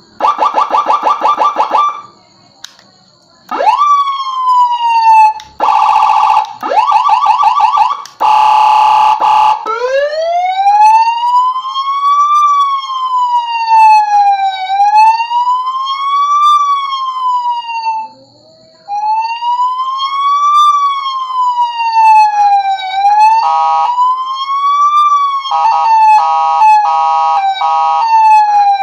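Electronic 7-tone siren module played through its tones in turn: a rapid pulsing tone, a quick rising whoop, another fast pulsing stretch, then a slow wail sweeping up and down, and fast chopped tones near the end. The tones stop briefly between patterns.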